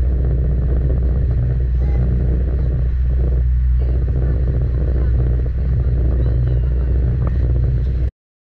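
Motor yacht's engines running steadily under way, a deep drone with a rougher rushing layer above it. The sound cuts off abruptly near the end.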